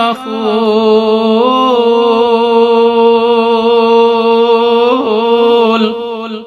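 A man singing a Bengali Islamic gojol. He holds one long melismatic note that wavers slightly in pitch, moves to a new note about five seconds in, and trails off near the end.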